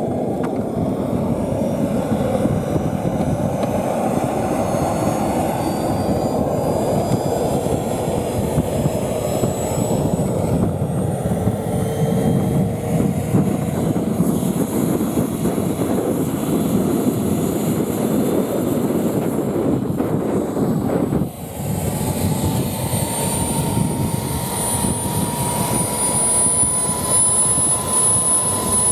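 Jet Munt 100 model jet turbine running on the ground: a steady rush of noise with a thin high whine that climbs slowly in pitch. About two-thirds of the way through, the sound dips for a moment, then settles into a steady whine that creeps slowly upward.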